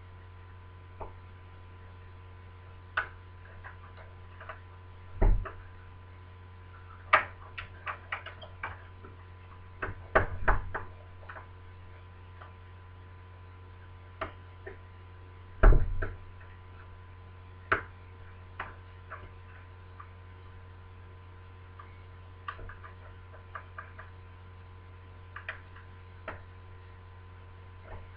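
Picking tools clicking and tapping inside a lever-type BS 3261 mortice deadlock as the levers are worked toward the gate: irregular light ticks with a few heavier knocks, over a steady low hum.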